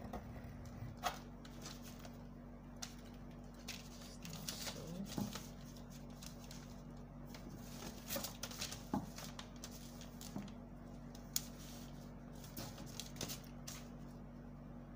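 Paper and drafting tools handled on a table: scattered light taps, clicks and paper rustles over a steady low hum.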